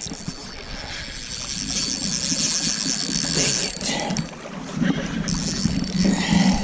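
Steady rush of flowing river water, with rustling handling noise close to the microphone.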